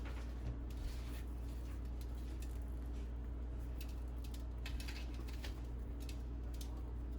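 A steady low hum with scattered faint clicks and scrapes, like light handling.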